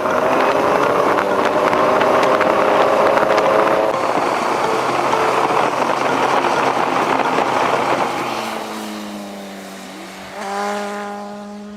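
Honda CBR600RR inline-four motorcycle engine running under way with heavy wind rush. The engine note drops away about eight seconds in, then rises again briefly a couple of seconds later.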